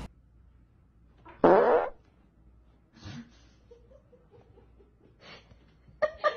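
A person's fart: one short, rough burst about one and a half seconds in, lasting about half a second.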